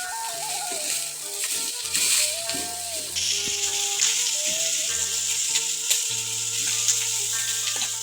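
Food sizzling as it fries in a pan, under background music with a gentle melody.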